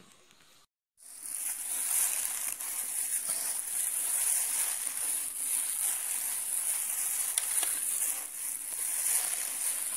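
Hand rubbing and squeezing crumbly flour dough in a bowl: soft rustling and crunching, over a steady high hiss. It starts suddenly about a second in.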